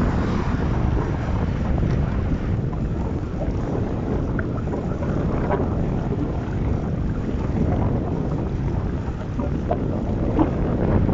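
Strong gusty wind buffeting the microphone on a moving bicycle, a steady low rumble.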